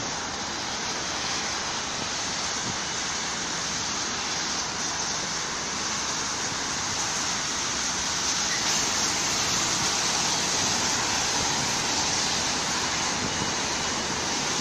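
Steady rushing noise of passing vehicles, getting a little louder about halfway through.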